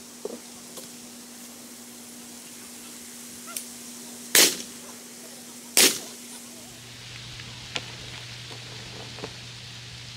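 Two shotgun shots at clay targets, about a second and a half apart, a few seconds in.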